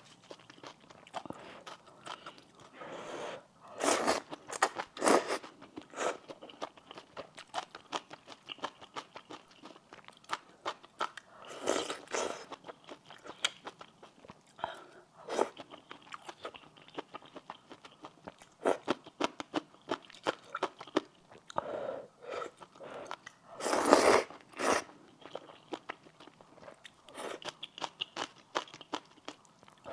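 Close-miked eating of luosifen (spicy snail rice noodle soup): wet chewing and mouth sounds with many small clicks, broken by a few louder slurps of noodles and broth, the loudest about a second long.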